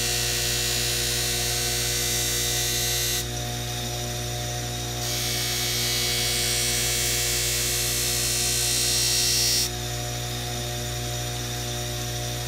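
Electric bench grinder running with a steady hum while a knife edge is held against its compound-loaded buffing wheel, which adds a high hiss. The blade touches the wheel in two passes: the first ends about three seconds in, the second runs from about five seconds to nearly ten. This is the final polishing of a freshly sharpened edge.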